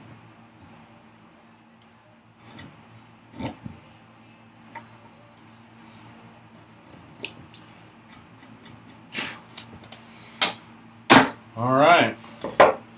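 Marking knife scraping and clicking along a scribed line on the top edge of a wooden vise chop, a few light strokes spread apart. From about nine seconds in come several louder knocks, and a short wavering squeak near the end.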